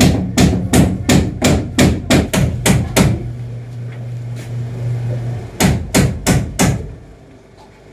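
Hammer striking repeatedly in quick, even blows, about three a second for roughly three seconds. After a short pause there is a second run of four blows, with a low steady hum underneath.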